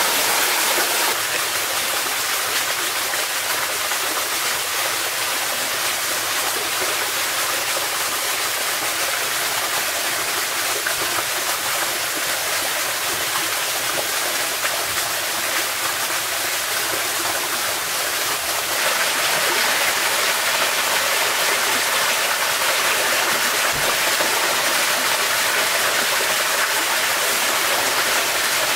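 Shallow forest stream flowing over rocks, a steady rush of water that grows somewhat louder about two-thirds of the way in.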